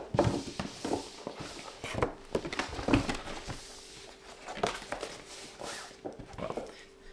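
Power-supply EPS CPU cables being handled: irregular rustling with scattered light clicks and knocks of the cables and their connectors.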